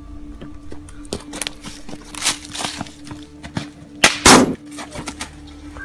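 A single pistol shot about four seconds in, the loudest sound, with a few fainter sharp cracks before it. A low, steady drone of background music runs underneath.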